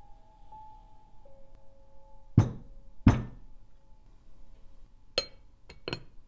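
Two heavy thumps about two-thirds of a second apart as a frying pan full of cake batter is knocked down on the worktop to level it. Then a glass pan lid clinks a few times as it is set on the pan, over soft background music with held notes.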